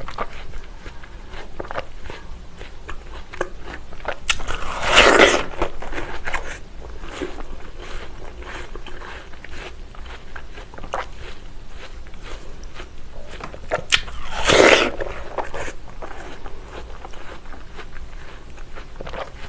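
Biting into watermelon and chewing close to the microphone. Two loud bites into the flesh come about four and fourteen seconds in, with chewing and small wet mouth clicks between.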